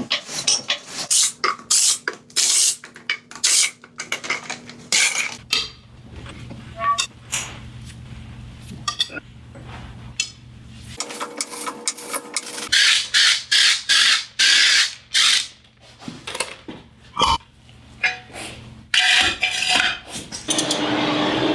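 Metal tools and parts being worked on a car's front wheel and brake assembly: irregular clanks, knocks and scrapes, with a steady noise starting near the end.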